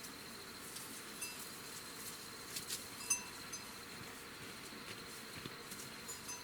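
A steady high-pitched insect trill, with a few light clicks and short chirps over a soft hiss.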